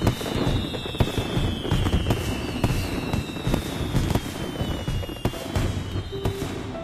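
Fireworks display: a dense run of bangs and crackles going off one after another, with high whistles that slide slowly down in pitch.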